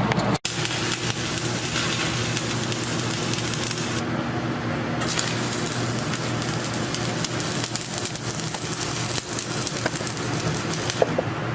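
Stick-welding arc crackling and sizzling steadily, with a steady low hum underneath.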